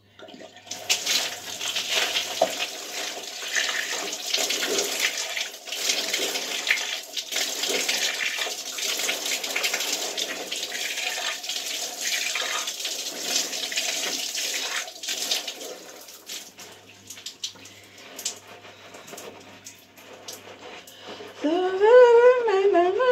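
Water from a shower running and splashing for about fifteen seconds, then dying down to fainter splashes and rubbing. A voice comes in near the end.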